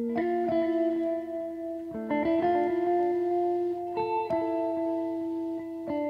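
Background music: held, guitar-like chords that change about every two seconds.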